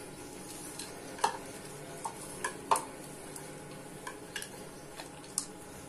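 A hand kneading soft gulab jamun dough mixed with chopped nuts in a ceramic bowl. The squeezing gives a soft squelch, with irregular sharp clicks as fingers and nut pieces knock against the bowl, the loudest about a second and a half and nearly three seconds in.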